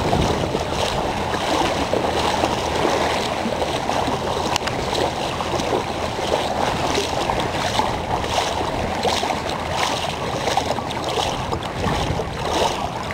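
Water sloshing and lapping around a small boat at sea, with wind on the microphone.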